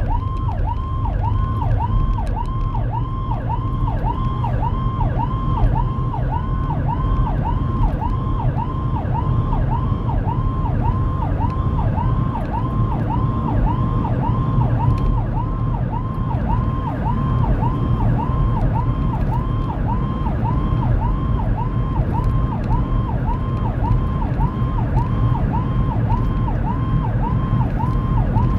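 Whelen 295SL100 electronic siren sounding a yelp: a fast tone that dips and rises about twice a second without a break. Heard from inside the cabin of the responding vehicle, over a steady low rumble of engine and tyres.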